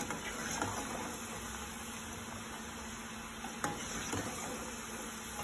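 Shakarpara dough squares deep-frying in hot oil: a steady sizzle, with a few light clicks of a slotted spoon against the pan as they are stirred.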